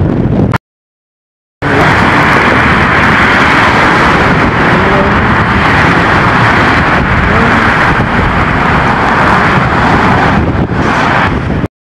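Steady, loud road traffic noise: cars running on the bridge roadway, an even hiss with a low rumble. The sound cuts out completely for about a second shortly after the start and again near the end.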